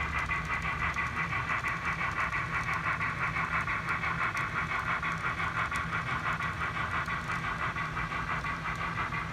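HO-scale model steam locomotive running along the track, giving a steady rhythmic chuff of about three to four beats a second over a low running hum.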